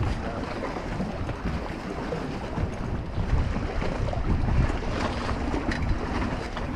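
Wind buffeting the microphone, gusting louder about halfway through, over choppy water slapping at a small boat's hull, with a few faint knocks near the end.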